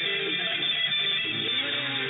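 Music led by guitar, with a steady level and no breaks.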